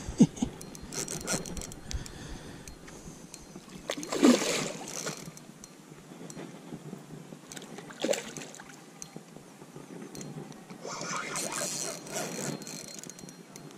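Water splashing at the side of the boat in several separate bursts, the loudest about four seconds in and a longer stretch of splashing near the end.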